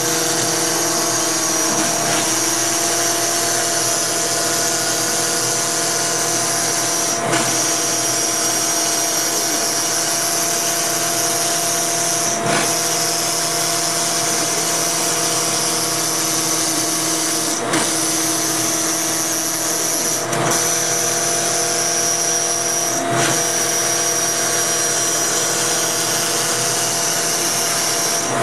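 CNC router running: the steady high whine of the spindle turning a 1/8-inch O-flute bit, with the rush of the dust-collection vacuum drawing through the shroud. The sound briefly dips about five times.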